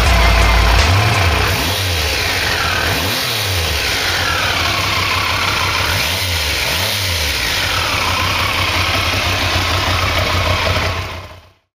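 1991 Triumph Daytona 750's inline-three engine revved repeatedly at standstill, its pitch rising and falling several times over the idle. It cuts off suddenly near the end.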